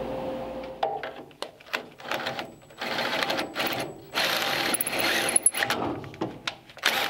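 Power drill spinning a tapered reamer in a rusted steel shock-mount hole, in a few short bursts and then longer runs, opening up the tapered bore to clear the last thin remnant of a broken stud.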